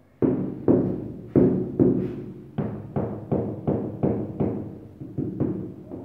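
Rubber mallet tapping a large ceramic floor tile down into fresh mortar to bed and level it: a quick, even run of more than a dozen blows, about two to three a second, each with a short hollow ring.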